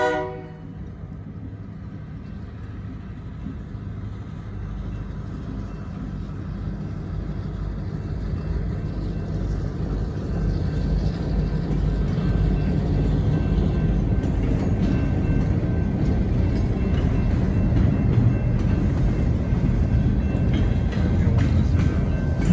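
A locomotive horn cuts off at the very start, then a passing freight train's cars rumble and rattle over the rails, a low steady noise that grows gradually louder.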